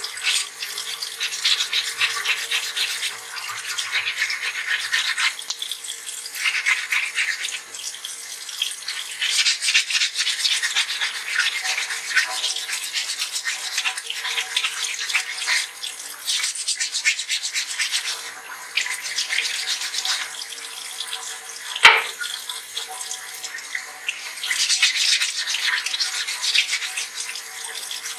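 Wet sanding a stone model by hand with 220-grit waterproof sandpaper under a running tap: quick scratchy rubbing strokes that come and go. A single sharp knock about three quarters of the way through.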